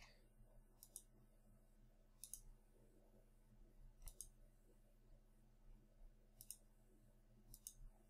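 Faint computer mouse clicks, a handful of single and double clicks spread a second or two apart, over near-silent room tone.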